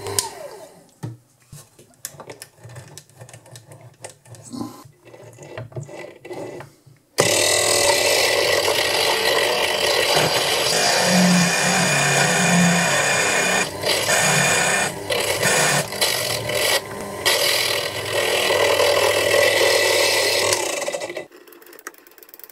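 A few scattered light clicks and knocks, then about seven seconds in a Proxxon mini mill's motor starts and an 8 mm diamond core drill grinds wet into solid granite: a loud, steady grinding with a motor hum under it, cutting off suddenly about a second before the end.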